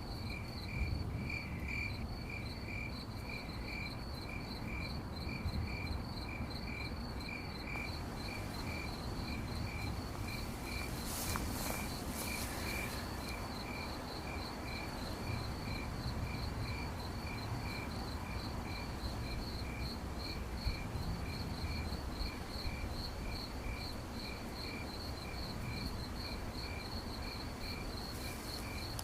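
Two crickets chirping steadily at different pitches, one lower and slower, the other higher and faster, over a soft low background rumble.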